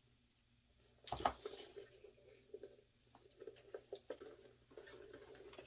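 Faint handling of a purse strap: a louder bump or rub about a second in, then scattered light clicks and taps as the strap's metal clasps are clipped onto the bag.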